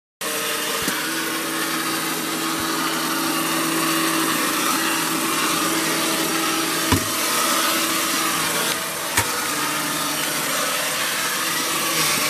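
Battery-operated Avenue Coach toy bus running along the floor, its small electric motor and gears giving a steady whirring drone. Two short sharp knocks come about 7 and 9 seconds in.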